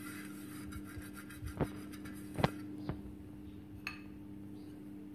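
An oil brush rubbing over a non-stick tawa, with a few light clicks of the brush or utensils against the pan, the loudest about two and a half seconds in. A steady low hum runs underneath.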